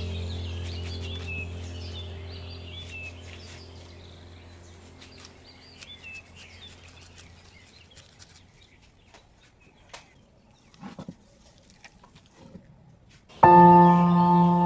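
Ambient background music with birdsong chirps, fading out slowly over the first half, then a quiet stretch with a few faint clicks; near the end a new ambient music track starts suddenly and loudly with sustained bell-like tones.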